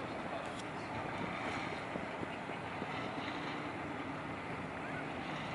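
A fishing boat's diesel engine running as the boat moves slowly, a steady drone with no change in level.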